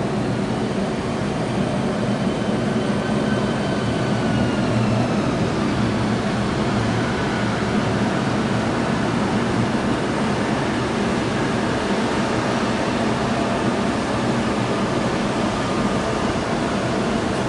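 Jet engines of an Alitalia Embraer E-Jet on the ground, a steady rumble with a faint whine that drifts slowly in pitch.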